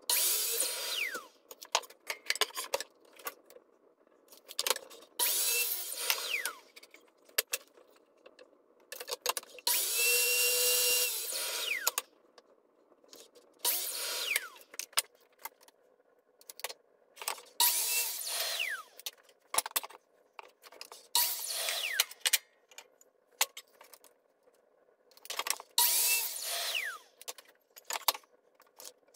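DeWalt miter saw crosscutting wooden boards, seven short cuts in a row: each time the motor whines up, the blade goes through the board in about a second, and the blade then winds down with a falling whine. The fourth cut, about ten seconds in, runs longer than the others. Light knocks and clicks of boards being handled come between the cuts.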